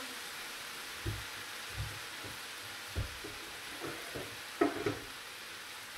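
Stir-fried vegetables sizzling softly in a wok with the heat turned down, with a few short soft knocks.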